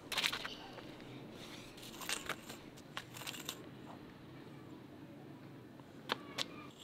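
Scattered scuffs and sharp clicks of shoes on a hard dirt yard as a boy hops, bends and kicks, over a faint steady background. The loudest click comes just after the start, with others around two, three and six seconds in.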